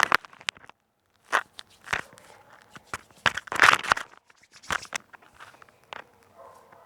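Irregular crackling, crunching and tapping right against a headset microphone, with the loudest bursts about a second and a half in and again around three and a half seconds in.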